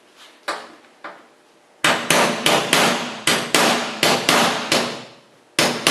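Hammer striking a cold chisel to cut off the rivets holding a fabric side panel: two light taps, then a rapid run of about a dozen sharp strikes, roughly four a second, and one more strike near the end.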